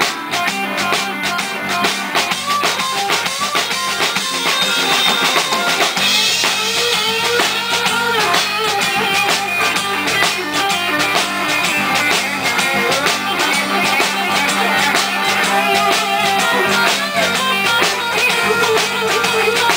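Live band playing an instrumental passage without vocals: electric guitar over bass guitar and a drum kit with steady beats and cymbals. It gets a little louder about six seconds in.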